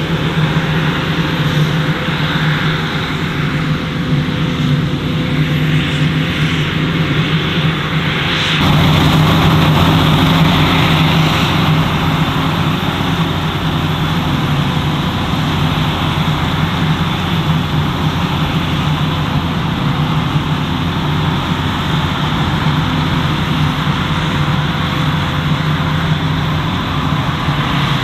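Steady, loud machinery noise with a low hum, changing abruptly about eight and a half seconds in, then running on evenly.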